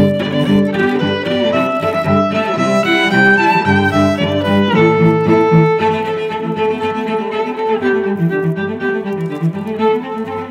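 Background music: bowed string instruments, violin and cello, playing a melodic passage.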